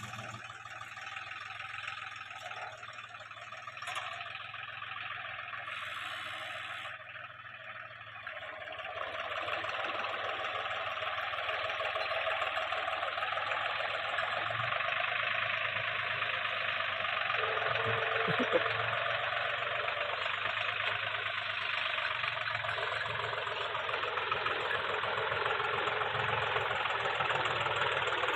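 Deutz-Fahr tractor's diesel engine running steadily while pulling a potato planter through tilled soil, growing louder about nine seconds in as it comes closer.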